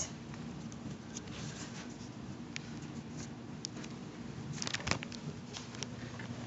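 Faint rustling and scattered light clicks from people moving about a quiet room, with a short cluster of knocks near the end as a man sits down on a couch.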